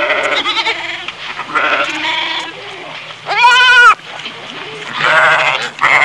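Goats bleating: several bleats in a row, some of them wavering. The loudest is a clear, drawn-out bleat a little past halfway.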